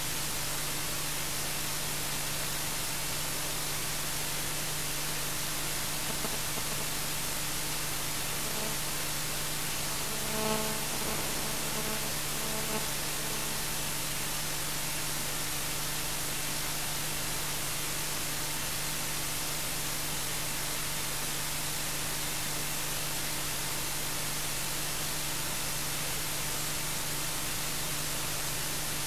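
Steady hiss with a low electrical hum: the recording's own background noise. A brief faint pitched sound comes through about ten seconds in.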